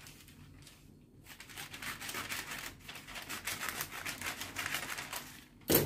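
Scissors cutting through a sheet of parchment paper: a run of rustling snips that starts about a second in and goes on for about four seconds. A single sharp click near the end.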